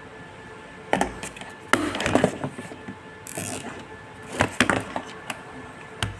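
Plastic clicks and knocks from a selfie-stick tripod and a small clip-on phone umbrella being handled and clamped: a sharp knock about a second in, a quick cluster of clicks around two seconds, a brief hiss, then two more clicks past the middle.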